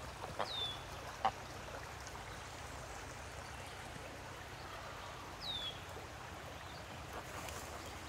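Quiet ambience with a steady low hiss, broken by two short, high, falling whistles, one about half a second in and one about five and a half seconds in, and a couple of faint clicks in the first second or so.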